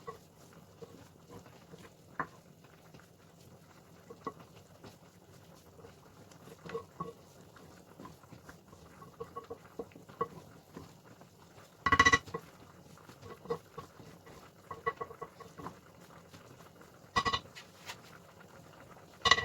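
A spoon working through food in a dish, with scattered light taps and scrapes. There are louder ringing clinks of utensil on dishware about twelve and seventeen seconds in, and again near the end.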